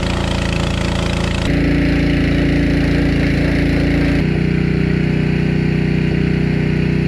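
Gas-engine pressure washer running steadily, with a hiss of spray above the engine note; the tone shifts abruptly about one and a half seconds in and again a little past four seconds.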